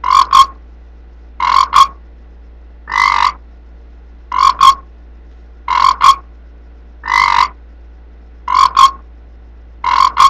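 Frog croaking in a regular rhythm, a call about every second and a half. Most calls are a quick double croak, with an occasional single longer croak.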